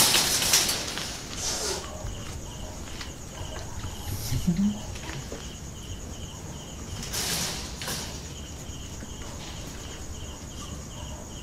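Crickets chirping steadily in an even, pulsed rhythm, with a few brief rustling noises over them, the loudest at the start and about seven seconds in.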